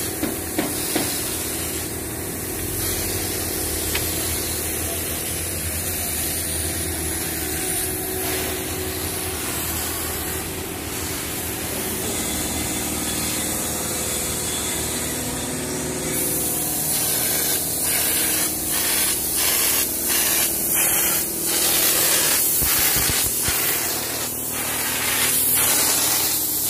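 Steady hiss of a textured-paint spray machine with a low motor hum beneath it. In the last third, a run of short rubbing strokes, about two a second, lies over it.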